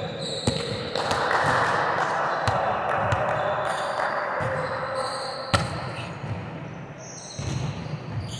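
Volleyballs being struck and bouncing on a gym floor: a few sharp smacks, the loudest about five and a half seconds in. A steady hiss runs under the first few seconds.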